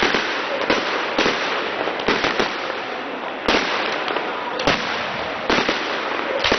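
Fireworks going off: a continuous hissing crackle with about nine sharp bangs at irregular intervals, some close together.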